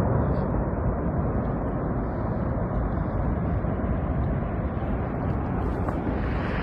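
Steady, deep rumble of a large slide coming down a mountainside.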